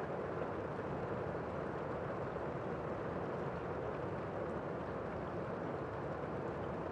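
Heavy rain heard from indoors, a steady muffled wash of noise with the high end dulled by walls and windows.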